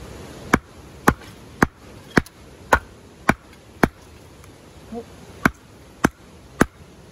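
A hatchet chopping into the end of an upright stick of hard wood: about ten sharp blows, roughly two a second, with a short break a little past the middle. The wood is hard and will not split.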